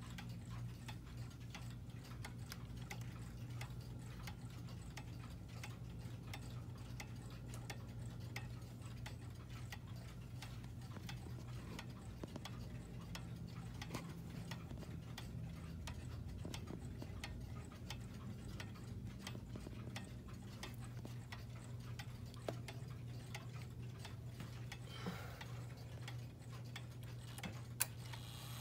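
Howard Miller Lewis wall clock ticking steadily, its pendulum movement beating evenly over a low steady hum. A sharper click comes near the end.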